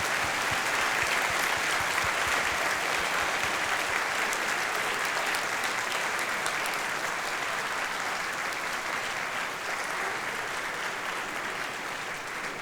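Audience applauding steadily, strongest at the start and slowly dying down toward the end.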